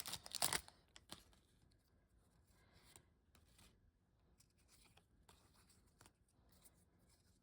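Foil wrapper of a Pokémon booster pack tearing and crinkling for about half a second, then faint rustles and light taps as the trading cards are handled.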